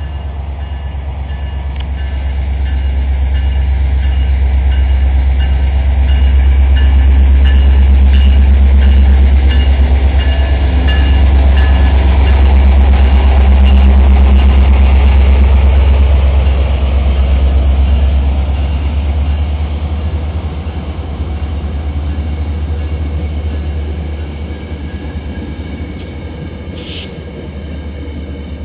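New Mexico Rail Runner Express commuter train passing at speed: the MP36PH-3C diesel locomotive's engine drone swells to its loudest as the locomotive goes by about halfway through, then the bi-level coaches roll past and the sound fades.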